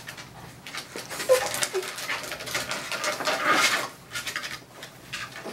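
A small dog panting, with two short whines about a second and a half in.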